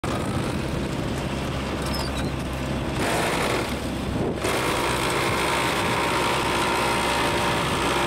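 Tractor engine running steadily while a Niplo WRS 3400BE wing harrow's rotor churns mud and water in a flooded rice paddy during puddling. The sound changes character about four seconds in.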